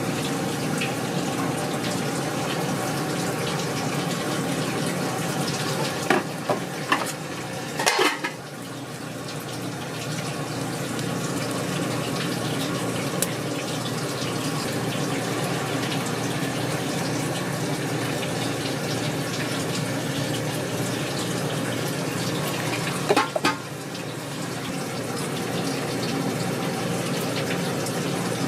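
Steady rushing kitchen noise, with short clusters of sharp clinks from cookware or utensils about six to eight seconds in and again about two-thirds of the way through.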